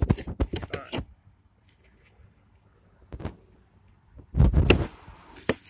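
A knife crunching and tearing through the belly of a small Mayan cichlid, with a run of sharp clicks in the first second, then mostly quiet. About four seconds in comes a loud, low rumbling bump.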